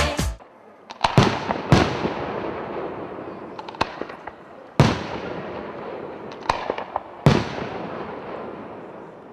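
Fireworks going off: a series of sharp bangs at irregular gaps of one to three seconds, each followed by a fading crackle and hiss. Loud dance music cuts off abruptly just before the first bang.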